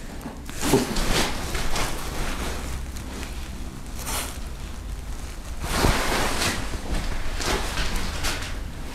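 Irregular soft rustles and scuffs of a handheld camera being carried and moved about, with a steady hiss underneath. A few louder swells come about a second in, around four seconds in, and near six and eight seconds in.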